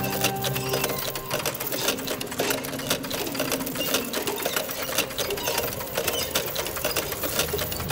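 Clockwork mechanism of an antique automaton doll running, a dense, rapid mechanical clatter of small clicks. Music fades out about a second in.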